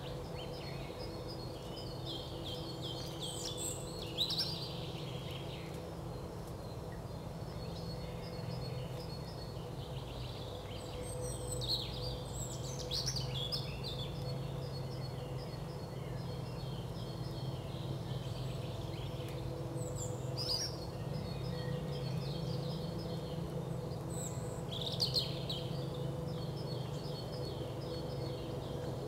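Small songbirds singing repeated trilling phrases, with a pause of several seconds between bursts, over a steady low hum.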